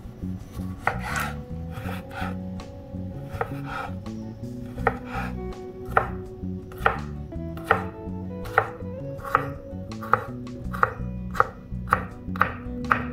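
Santoku knife dicing cucumber on a wooden cutting board, the blade knocking the board with each cut. The chops are irregular at first, then settle into about one sharp knock a second from about five seconds in.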